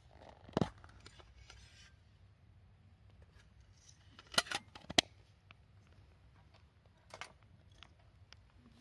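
A few sharp clicks and knocks from something being handled: one about half a second in, a cluster of the loudest around four and a half to five seconds, and a fainter one near seven seconds.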